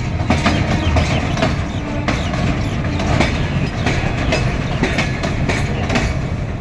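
Goods train running along the track: a steady heavy rumble with repeated clicks of the wagon wheels over the rail joints.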